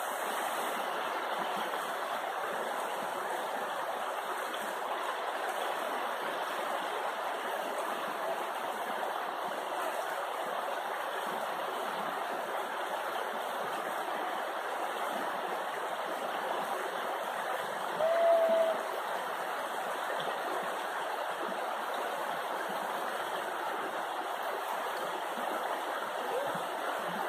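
Steady rush of river water running over shallow rocky rapids. About two-thirds of the way in there is one brief high-pitched call.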